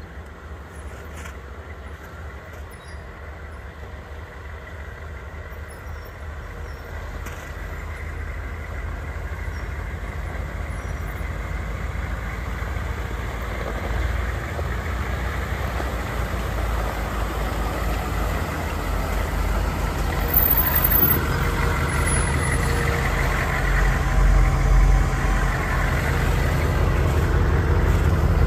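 Two Humvees' diesel engines running as the vehicles drive up, growing steadily louder as they approach. The lead one, an M1097A2 with its V8 diesel, is loudest near the end as it pulls in close.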